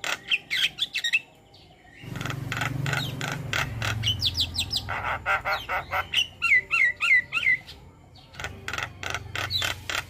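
Starlings singing: fast runs of repeated sharp chattering notes, about six a second, mixed with short rising and falling whistles, with a brief pause near the start and a low hum underneath at times.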